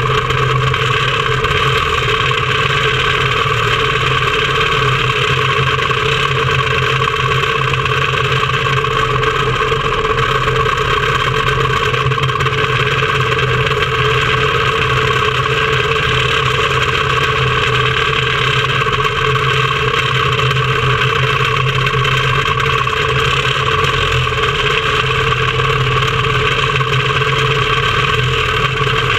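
Quarter midget race car engines idling steadily, heard close up from a camera mounted on the car just ahead of its engine's air filter.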